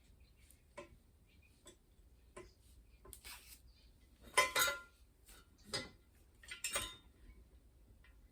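Metal bike-assembly hardware clicking and clinking as it is handled, with a few louder clinks in the middle.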